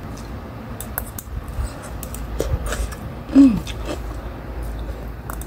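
A person eating fried stinky tofu from a metal spoon: soft chewing and mouth sounds with a few light clicks of the spoon. About three and a half seconds in there is a short falling 'mm' hum of enjoyment.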